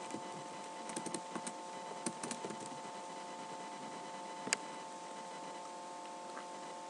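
Computer keyboard keys being typed in two short clusters of clicks, about a second in and again about two seconds in, with a single sharper click a little after the middle. A steady hum runs underneath.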